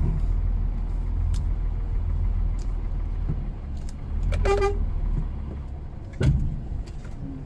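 Low, steady diesel engine drone heard from inside the truck's cab as it is towed up a snowy slope by a tractor. A short, flat, high tone like a horn toot sounds about halfway through, and a sharp knock follows about a second and a half later as the drone fades.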